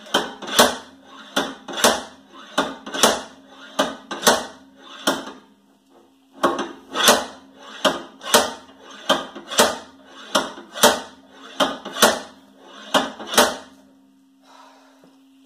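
Repeated hammer blows on steel, about two to three a second, striking a seized rear wheel hub on a 2010 Toyota Prius to drive it out. The hammering pauses briefly about six seconds in, then resumes and stops near the end.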